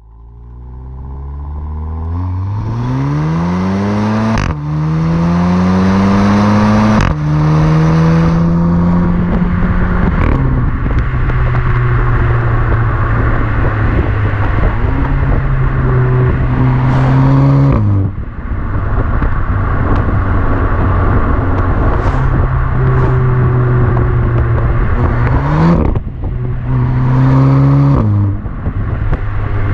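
Audi TT 8S 2.0 TFSI turbocharged four-cylinder on its stock exhaust, accelerating hard from low revs with the pitch rising steeply. It upshifts about 4, 7 and 10 seconds in, then runs at steadier revs with a few lifts and brief throttle rises near the end.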